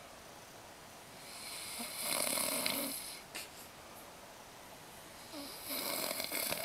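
A sleeping person snoring: two snores about four seconds apart, each lasting well over a second.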